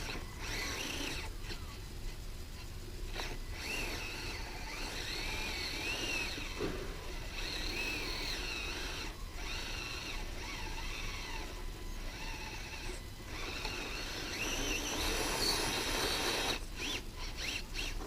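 Axial SCX24 micro RC crawler's small electric motor and gears whining, the pitch rising and falling with the throttle, stopping and starting several times as it crawls over rough ground.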